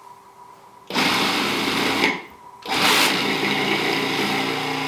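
Food processor motor switched on twice, chopping a bowl of fruit and vegetable juice pulp. It runs about a second, stops briefly, then starts again and keeps running. The blades struggle to get going through the heavy load.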